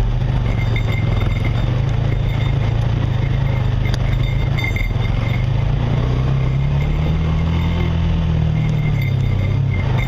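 Off-road vehicle engine running steadily at low revs on a rough trail. Its pitch rises a little about seven seconds in and drops back a couple of seconds later.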